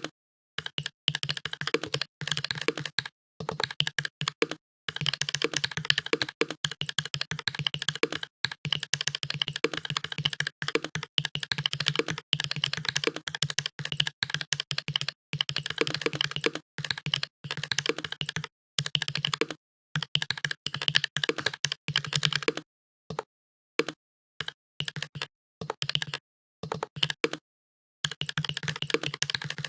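Fast typing on a computer keyboard: a dense, rapid run of key clicks in bursts broken by brief pauses, with a longer pause about three-quarters of the way through.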